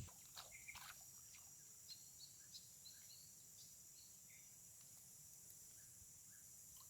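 Faint outdoor ambience: a steady high insect drone with scattered short bird chirps and a few light clicks in the first second.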